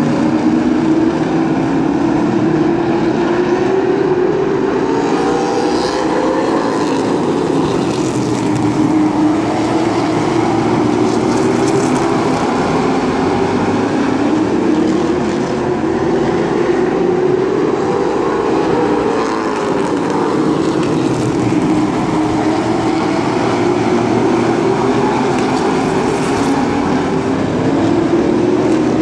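A field of Limited Late Model stock cars racing on an oval, their V8 engines running hard. The engine pitch climbs and then drops, again and again, as the cars go round.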